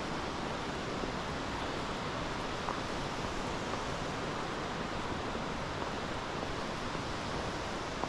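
Steady, even rush of a waterfall and river.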